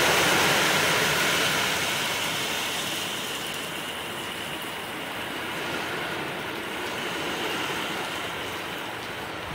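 Heavy rain pouring down on trees and bare ground during a strong storm, a steady hiss that grows somewhat quieter over the first few seconds.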